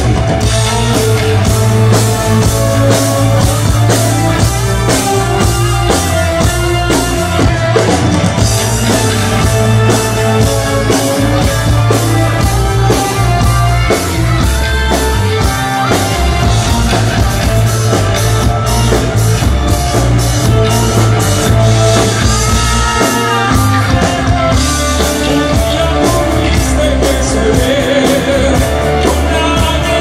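Live rock band playing with a steady drum-kit beat, electric guitars and bass guitar, with a voice singing over the band.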